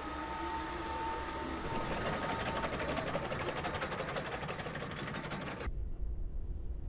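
Extreme H hydrogen fuel-cell off-road race car driving off under electric power: a steady high whine, then a dense crackle of tyres on gravel and sand as it passes. Near the end the sound cuts off abruptly to a low rumble.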